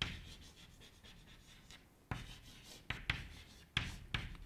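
Chalk writing on a blackboard: short tapping and scratching strokes of the chalk, faint in the first two seconds, then several in quick succession in the second half.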